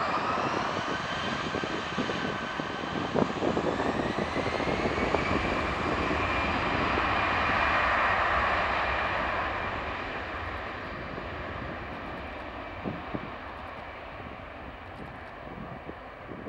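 Airbus A320-214 jet airliner's twin CFM56 turbofans at takeoff thrust during the takeoff roll: a fan whine that climbs in pitch over the first few seconds over the engine noise. It is loudest about halfway through as the aircraft rolls past, then fades as it accelerates away.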